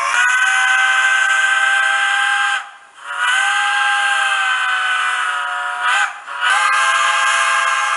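Steam locomotive whistle from a TCS WOW-Sound model railroad decoder, played through a 20mm speaker: a chime of several tones blown long, long, short, long, the grade-crossing signal. Thin, with no bass at all.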